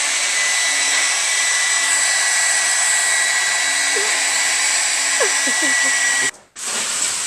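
Hand-held hair dryer blowing steadily into the valve of an inflatable pool to inflate it, a loud even rush of air with a thin steady whine. It cuts out about six seconds in and comes back on a moment later.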